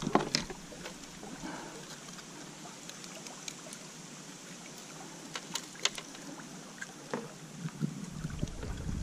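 Gentle water flowing and lapping around a plastic fishing kayak, with a few sharp clicks of fishing tackle handled against the hull, several close together a little past the middle. A low rumble sets in near the end.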